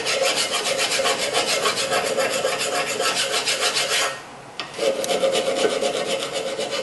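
Steel hand file rasping back and forth over the rusted rear brake caliper bracket, scraping rust off where the brake pads sit. Quick repeated strokes, with a short break about four seconds in before the filing resumes.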